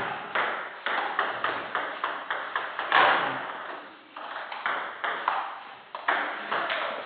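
Table tennis rally: the ball clicks sharply off the bats and the table in quick alternation, each hit leaving an echoing tail in a large hall. There is a short break in the clicks about four seconds in.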